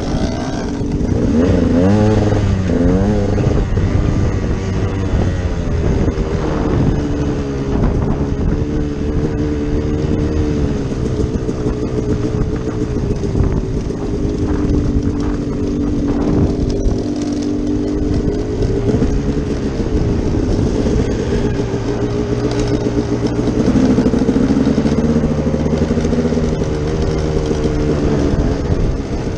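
Dirt bike engine under way, its pitch climbing and dropping again and again as the throttle is opened and shut, with quick up-and-down revs a couple of seconds in. Wind rushes over the microphone.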